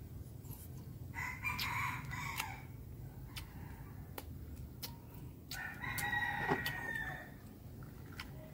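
A rooster crowing twice, each crow about a second and a half long, the second starting about four seconds after the first.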